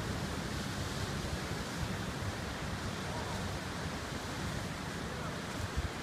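Sea surf washing and breaking on a rocky shore, a steady rush of noise, with wind rumbling on the microphone.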